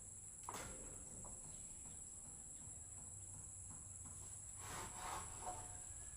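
Insects, crickets by the sound, trilling steadily and high-pitched in the background. There is a single click about half a second in and a few faint knocks a little before the end.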